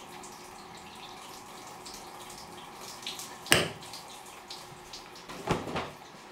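Tap water running steadily into a bathroom sink, with small drips and spatters, and two louder splashes about three and a half and five and a half seconds in.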